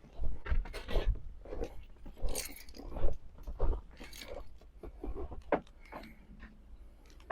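Crunching footsteps, roughly two steps a second, on cold winter ground.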